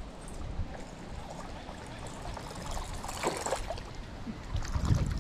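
Water splashing at the lake surface as a casting lure is retrieved on the line, with a louder splash about three seconds in. Low thumps hit the microphone near the end.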